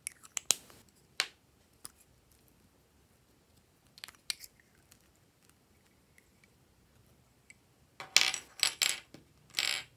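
Small plastic toy bottles and a plastic vial clicking and rattling as they are handled: a few light clicks in the first half, then a run of louder, longer rattles near the end.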